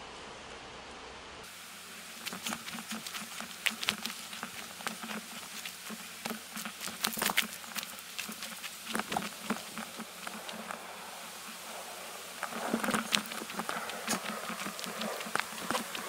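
Footsteps through dry grass and undergrowth: an irregular patter of crackles, snaps and rustling of stems, starting about a second and a half in and growing louder for a stretch about two-thirds of the way through.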